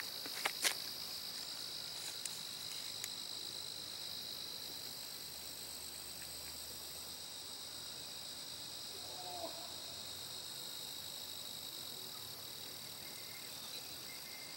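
A steady, continuous high-pitched trilling of crickets in chorus, with a few sharp clicks in the first second.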